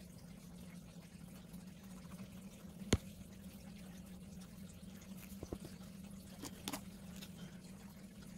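Low steady hum with a few light clicks of marker pens being handled and swapped, the sharpest about three seconds in and fainter ones between five and seven seconds.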